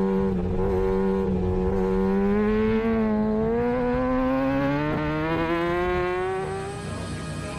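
600cc four-stroke supersport racing motorcycle engine at high revs, its pitch climbing slowly and steadily under hard acceleration, then fading away near the end.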